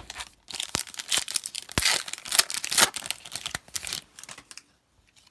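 A plastic-foil trading card pack wrapper being torn open and crinkled by hand, a dense run of crinkling from about half a second in until about four seconds in, then it stops.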